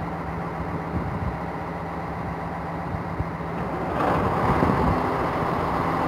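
Alstom X 73500 diesel railcar's engines idling at a standstill, a steady drone. About four seconds in it grows louder, with a higher rushing sound added.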